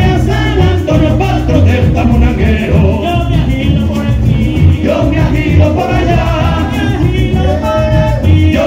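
Live golpe tocuyano: several men sing in harmony over strummed cuatros and a mediocinco, a hand drum, bass and shaken maracas, in a steady driving rhythm.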